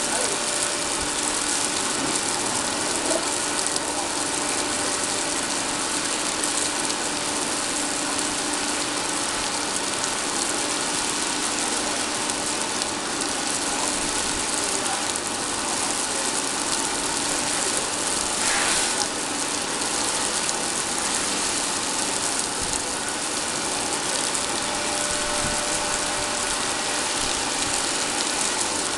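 Steady running noise of oil rig machinery: an even hiss with several constant hums under it. A brief rushing burst stands out about two-thirds of the way through.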